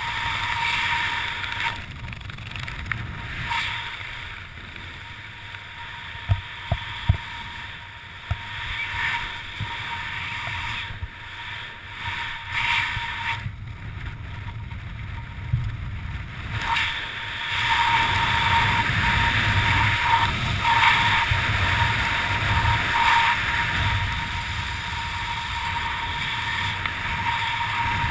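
Wind rushing over a head-mounted camera's microphone during a descent under an open parachute canopy, gusting unevenly and growing louder in the second half, with a few sharp knocks about six and seven seconds in.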